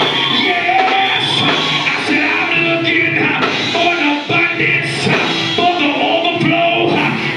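Loud live church praise-break music with singing over it, cymbals hitting at a steady beat.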